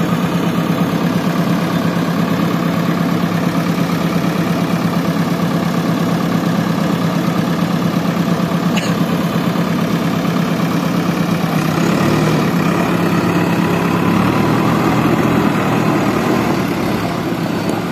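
JCB backhoe loader's diesel engine running steadily with a fast, even pulse. It grows louder about twelve seconds in as the front loader works its bucket of mud up over the tipper.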